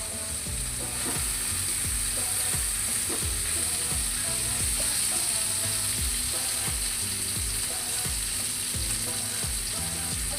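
Eggplant pieces frying in hot mustard oil in a frying pan, a steady sizzle.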